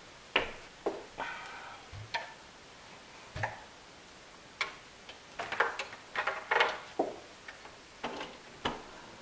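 Light, irregular clicks and knocks of plastic being handled as the Nesco food dehydrator's lid is settled on its stacked trays and its power cord is dealt with, busier about five to seven seconds in.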